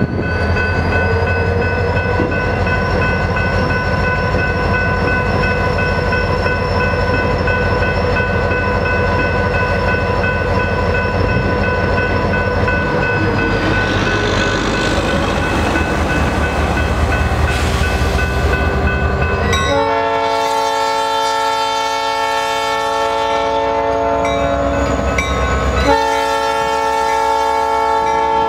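EMD diesel locomotive running as it approaches, a low rumble with a steady whine that rises near the start and drops about halfway through. About two-thirds of the way in its air horn sounds a long blast, then, after a brief break, a second blast.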